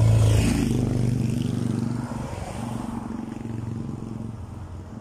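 A motorcycle passing close by on the road, its engine loudest at the start and fading away as it goes.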